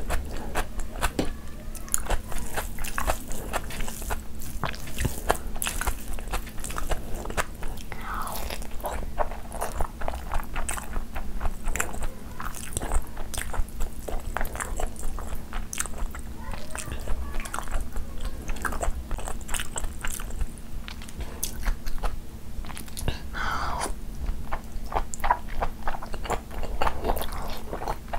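Close-miked chewing of a person eating mutton curry and rice by hand, with many short mouth clicks throughout.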